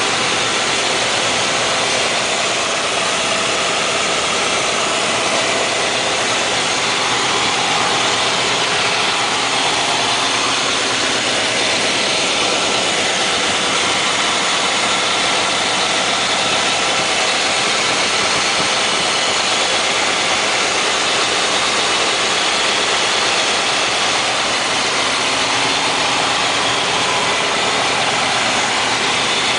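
1955 Cadillac 331 cubic-inch V8 idling steadily, running smooth like a sewing machine.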